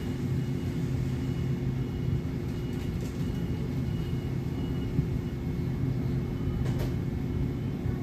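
Steady low hum and rumble of convenience-store background noise, with a faint high tone pulsing on and off during the first half and a single soft click about five seconds in.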